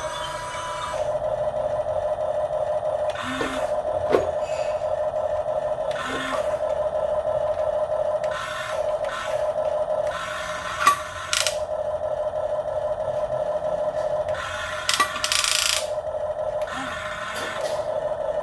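Small electric motor of an RC excavator whining steadily, stopping and starting again several times as the machine works. Sharp clacks and scrapes come through the whine, loudest about 4, 11 and 15 seconds in, fitting wooden blocks being handled by the excavator.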